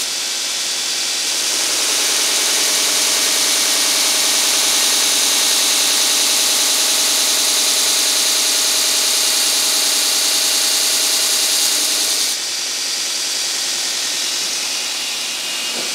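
Homemade 2x72 belt grinder running while steel plate is pressed against the abrasive belt, giving a loud, steady, high hiss of grinding. The hiss builds in over the first couple of seconds and cuts off suddenly about twelve seconds in as the work leaves the belt, leaving the motor and belt running on their own.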